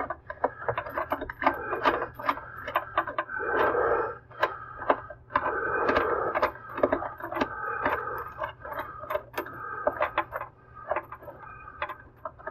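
Moen faucet mounting nut being spun up the threaded shank with the plastic installation tool: rapid, irregular clicking and rasping scrapes of plastic on the threads and washer, the nut running up toward snug.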